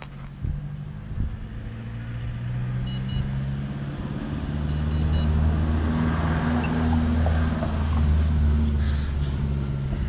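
A steady low motor hum with several pitches, growing louder about four seconds in and then holding. Two pairs of short, high electronic beeps sound about three and five seconds in.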